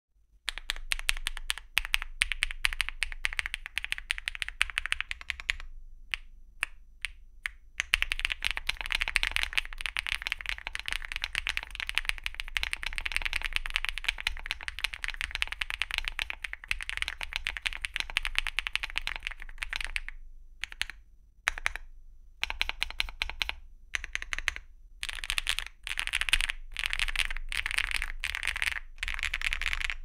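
Fast typing on a Leobog Hi8 mechanical keyboard with HMX x Sillyworks Hyacinth V2 linear switches, a polycarbonate plate, full foam and XDA-profile PBT keycaps: a dense, poppy clatter of keystrokes. It drops to a few single taps between about six and eight seconds in, and breaks off briefly several times in the last third.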